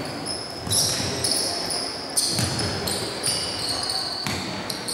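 Basketball shoes squeaking over and over on a hardwood court, short high squeals that start and stop many times, with a basketball bouncing a few times.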